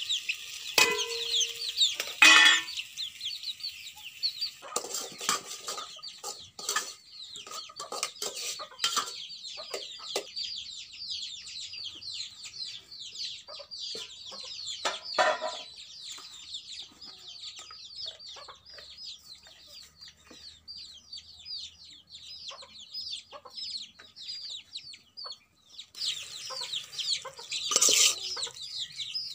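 Chickens calling: a steady stream of short, high, falling cheeps with clucking. About two seconds in there is a loud clank as the steel plate lid is set on the cooking pot, with a few lighter knocks later on.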